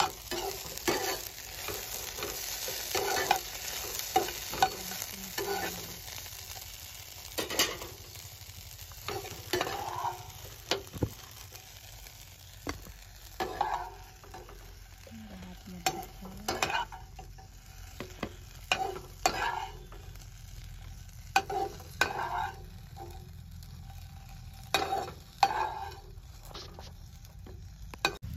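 Steel spatula scraping and knocking in a nonstick kadai as pan-fried okra pieces are scooped out and dropped into a glass bowl: irregular scrapes and clinks, a few every second or two, over a faint sizzle.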